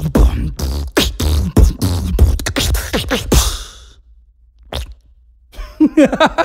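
Vocal beatboxing into a studio microphone: a quick run of mouth-made kick- and snare-like pops and clicks, about four a second, for roughly four seconds. A single pop follows, then a short laugh near the end.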